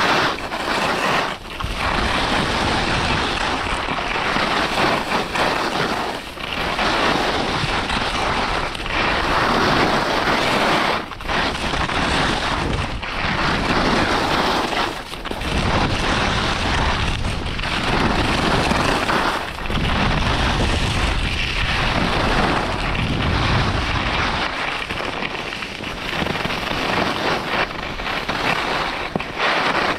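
Skis carving and scraping over hard-packed snow at speed, a continuous rough hiss that dips briefly between turns, mixed with heavy wind buffeting on the microphone.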